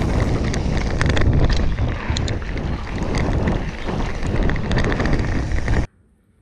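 Wind buffeting the microphone of a rider-mounted camera on a mountain bike running downhill on a dirt trail, with the rumble and rattling clicks of the tyres and bike over rough ground. It cuts off suddenly near the end.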